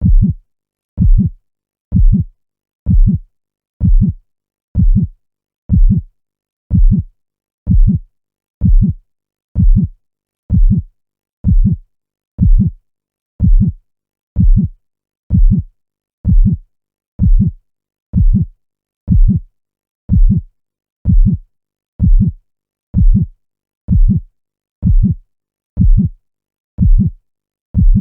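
Heartbeat sound: a steady lub-dub, each beat a pair of low thumps, repeating about once a second with silence between beats.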